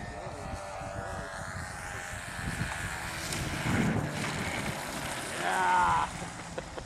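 Radio-controlled P-51 model plane's engine running at low throttle on landing approach, with a loud thump about four seconds in as the model touches down on the grass strip. A short voice-like call follows near the end.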